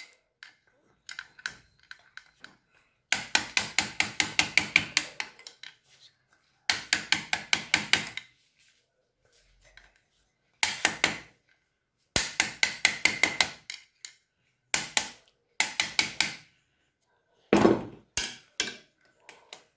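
Quick runs of light metal-on-metal hammer taps on a tool wedged in a broken spark plug's stub in a Hero Splendor's cylinder head, about seven runs with short pauses between. Struck gently rather than hard so that the seized plug threads work loose.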